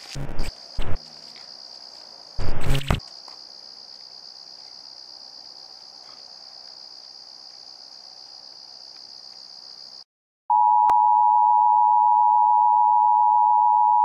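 A few heavy footsteps on concrete close by in the first three seconds, over a steady high insect trill. About ten seconds in the sound cuts out, and a loud steady electronic beep tone follows for about three and a half seconds.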